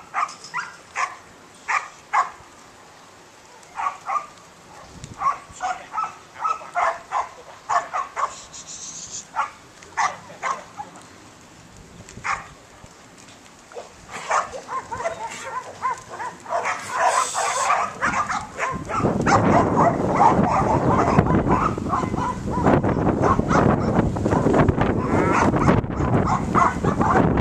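A dog barking over and over, short sharp barks about half a second to a second apart with brief pauses between runs. About two-thirds of the way through, a loud rough rushing noise comes in and drowns the barking.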